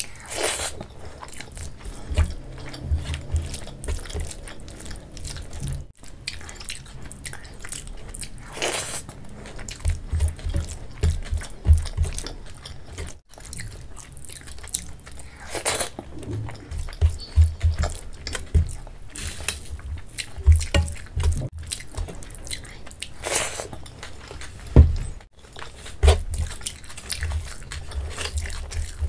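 Close-miked eating of rice soaked in kadhi, taken by hand: repeated chewing with wet mouth sounds, and now and then a louder, sharper smack or slurp.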